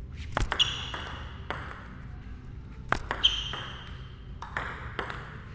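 Table tennis rally: a plastic ball clicking sharply off the bats and the table, about ten clicks, several in quick pairs of hit and bounce.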